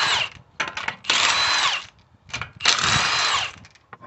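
Milwaukee M18 cordless impact wrench spinning lug nuts off a car wheel in repeated bursts of about a second. Between the bursts come short blips of the trigger, and the motor's whine falls in pitch as each burst ends.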